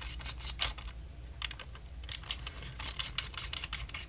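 Rapid clicking of a small ratcheting Torx T6 screwdriver working screws in the plastic housing of a climate control unit. It comes in two runs of quick clicks, with a sparser stretch about a second in.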